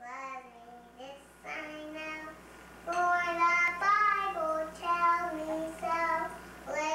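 A high solo voice singing slow, held notes of a song, growing louder about three seconds in.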